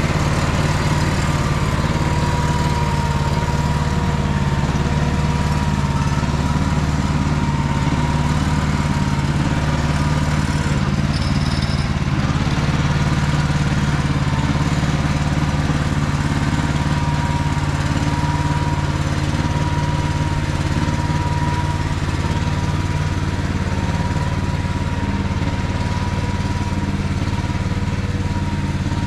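Small MT8-070 MINI tractor's engine running steadily under load while pulling a plough, with a faint steady whine above the engine note.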